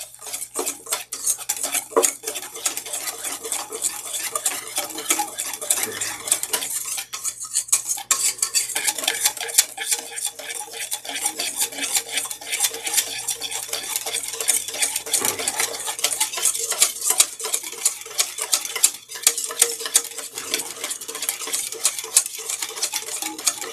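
A whisk beating a liquid marinade in a bowl: rapid, continuous clicking and scraping against the bowl, broken by a few short pauses.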